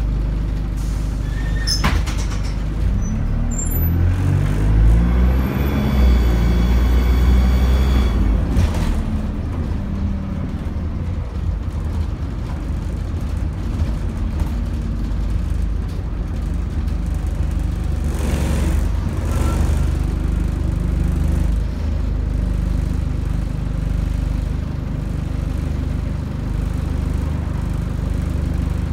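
Dennis Dart single-deck bus heard from inside the saloon, pulling away from a stop: a short sharp sound about two seconds in, then the engine revs rising as the bus accelerates with a high whine over them, settling into a steady low drone as it cruises.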